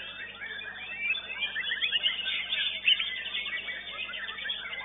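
Caged songbirds singing at once: a dense, overlapping stream of quick whistled notes, glides and chirps with no pause.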